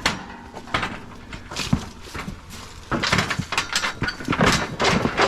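Metal cattle squeeze chute rattling and clanging with a cow inside. A few sharp knocks come first, then a dense clatter from about three seconds in.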